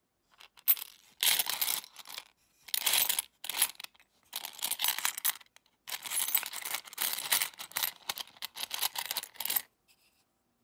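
A hand rummaging through a pile of old Philippine coins in a wooden box, the coins clinking and scraping against one another in several bursts. The bursts stop shortly before the end.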